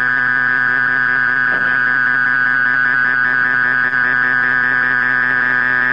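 Steady electronic tone with many overtones, high-pitched and unchanging, in a fighter jet's cockpit intercom audio.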